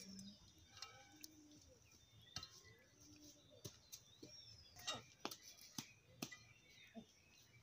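Faint clinks of a steel ladle against a metal cooking pot and small metal serving bowls as curry is ladled out: a scatter of sharp ticks, several in the second half. Faint bird chirps in the background.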